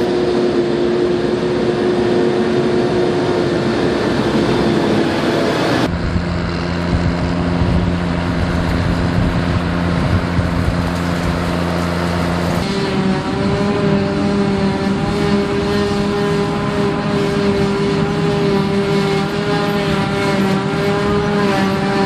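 Engines of silage-harvesting machinery, forage harvester and tractors, running steadily at working speed. The pitch and mix change abruptly twice as different machines take over.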